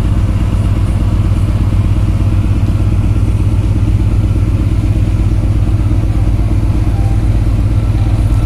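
Engine running steadily: a loud, low, even drone with a fast regular pulse.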